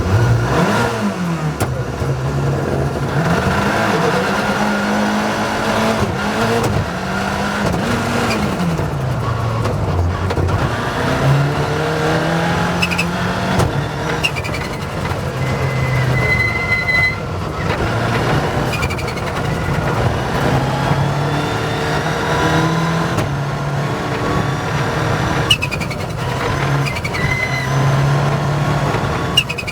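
Rally car engine pulling hard and easing off, its pitch climbing and dropping again and again through gear changes, over steady road noise, with a few short high squeaks.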